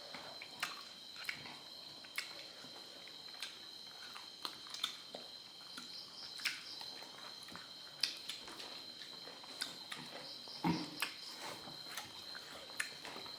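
Eating sounds of someone chewing a meal of fish curry, rice and prawns: irregular small mouth clicks and smacks, one slightly fuller one about three-quarters through, over a faint steady high-pitched whine.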